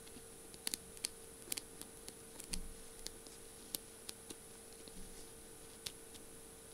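Fingernails tapping on the beaded, jewelled barrel of a feather-topped novelty pen: light, sharp clicks at an uneven pace, sometimes in quick pairs.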